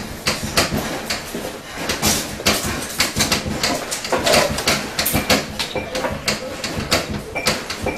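Dense, irregular clattering and knocking of objects being moved and handled in a room.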